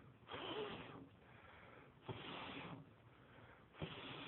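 A man blowing hard, mouth to the grill, on a smouldering wood fire that keeps going out, the wood likely damp. Three long puffs of breath come about every second and a half, the last two opening with a sharp pop.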